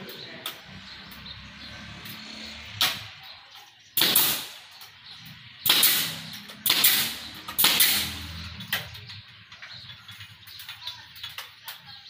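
Pneumatic nail gun firing about five times, fixing a wooden door-frame strip to the wall. Each shot is a sharp crack with a short hiss of air, most of them between about four and eight seconds in.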